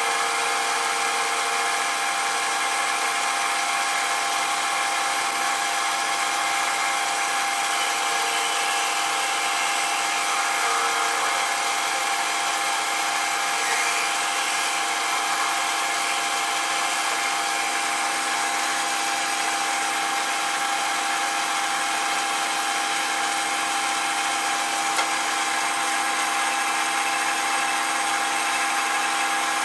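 Small metal lathe running at a steady speed, with a steady whine of several held tones, while its cutting tool turns down a bone ramrod tip.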